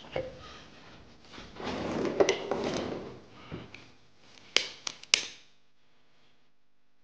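Household objects being handled and moved about while tidying: rubbing and rustling, then a few sharp knocks and clicks about four and a half to five seconds in.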